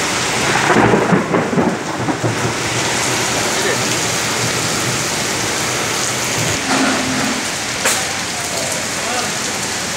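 Heavy rain pouring steadily on leaves and paving, with a rumble of thunder about a second in that swells and fades over a second or two.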